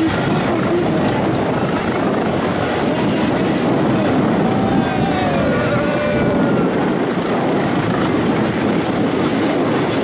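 Eurocopter EC135 helicopter hovering low, a loud steady rotor and turbine noise with strong wind buffeting the microphone.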